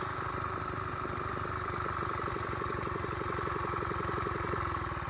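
Predator single-cylinder engine on a Baja Heat mini bike running steadily, with an even beat of firing pulses and no change in speed.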